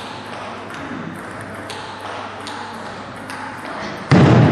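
Table tennis ball making sharp, separate clicks on bat and table, spaced a little under a second apart. Near the end comes a sudden, much louder burst of noise.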